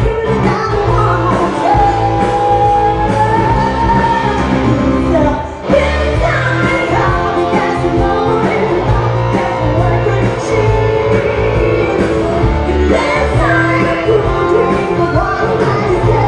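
Live rock band playing with a woman singing lead through a microphone, holding one long note early on; the band briefly breaks off about five seconds in, then comes straight back in.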